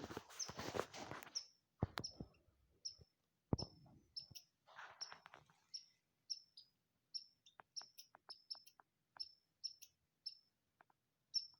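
Squirrel alarm calls: a steady series of short, high, sharp chirps about twice a second, the squirrel alerting to the hunter's presence. A couple of dull knocks in the first few seconds.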